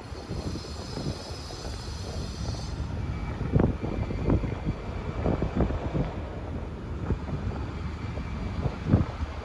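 Low steady outdoor rumble with wind buffeting the microphone in irregular gusts. A thin high whine is heard over it for the first few seconds and then stops.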